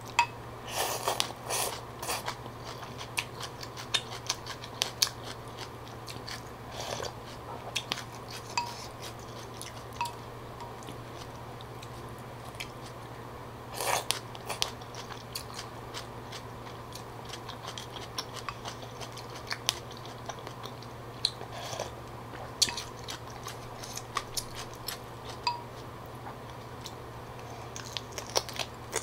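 Close-up eating sounds of a bowl of phở: wet chewing and biting with many small clicks, and noodles slurped in about a second in and again about 14 seconds in. A steady low hum runs underneath.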